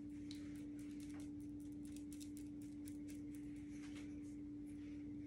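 Faint quick ticks and brushing of a synthetic foundation brush's bristles working over skin, over a steady low hum.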